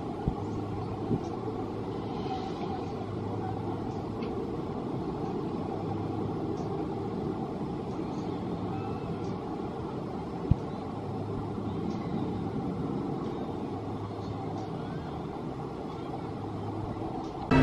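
Steel roller coaster train running along its track across the water: a low rumble that swells and fades several times over steady outdoor noise. A sharp click about ten seconds in.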